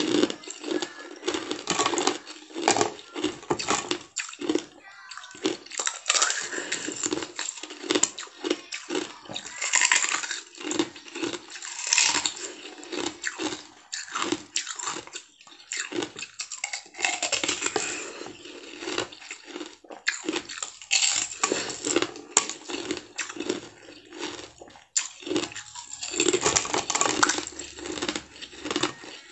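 Ice with pomegranate seeds frozen into it being bitten and chewed: a dense, irregular run of crisp cracks and crunches.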